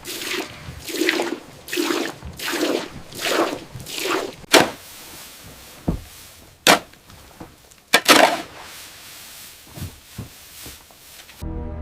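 A run of about seven quick scraping strokes, then several sharp, separate knocks on what sounds like wood, before music cuts in near the end.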